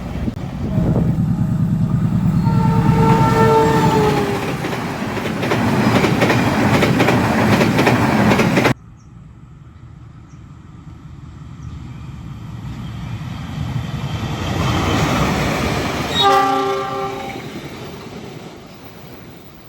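A passing train sounds a long horn blast over the loud rumble of its wheels. After an abrupt cut, another train approaches with a growing rumble, gives a short horn blast near the end and fades away.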